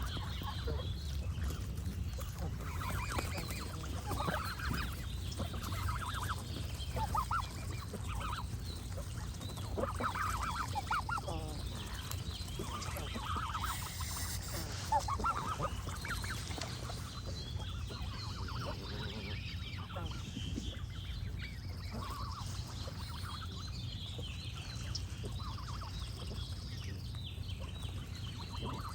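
Geese honking again and again, the honks thinning out after about the middle, with smaller birds chirping higher up and a steady low rumble beneath.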